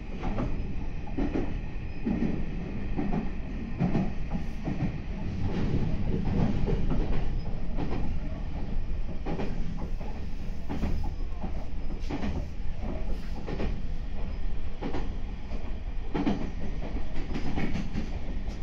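Meitetsu 9500 series electric train running, heard from inside the front car: a steady rumble with irregular clicks as the wheels pass over rail joints.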